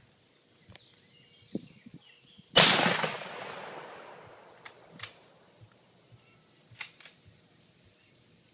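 A single loud gunshot about two and a half seconds in, with a long fading echo, fired into a hot water heater to hole it and drain it. A few faint sharp ticks come before and after.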